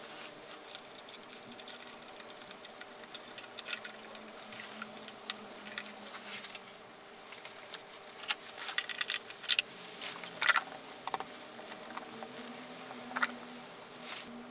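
Wires and small switches being handled and pushed into a plastic electrical junction box: scattered light clicks and rustles, bunched about two-thirds of the way through, over a faint steady hum.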